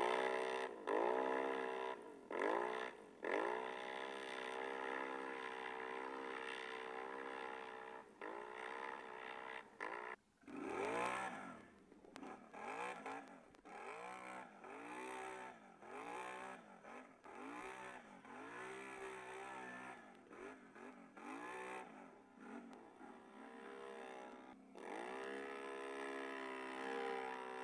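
Can-Am Renegade ATV's V-twin engine revving up and down over and over under throttle, with a short dip about ten seconds in.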